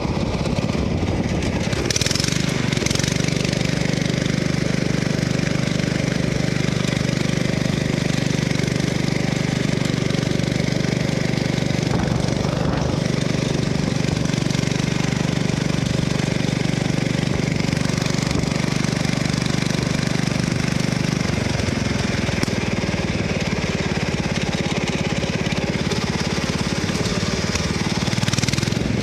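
Riding lawn mower engine running steadily under way, its note changing about two-thirds of the way through.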